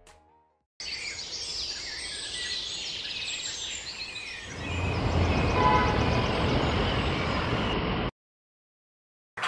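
Birds chirping over outdoor ambience, giving way about halfway through to louder city street traffic rumble, which cuts off suddenly; a short burst of sound right at the end.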